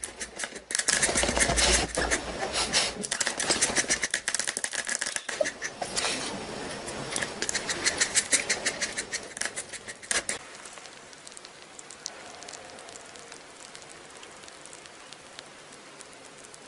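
A small puppy's paws and claws tapping and scratching rapidly on a glass table top, many quick irregular clicks, dying down about ten seconds in.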